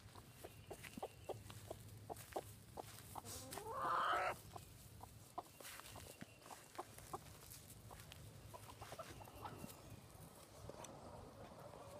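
Broody hen clucking in a string of short, repeated clucks, with one louder, longer squawk rising in pitch about four seconds in.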